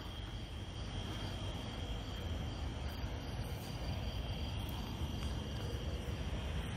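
Crickets chirping steadily, a continuous high trill over a low background rumble.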